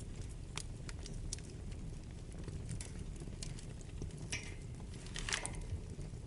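Wood fire burning in a fireplace: a steady low rumble of flames with scattered sharp crackles, and two louder crackles with a brief hiss about four and five seconds in.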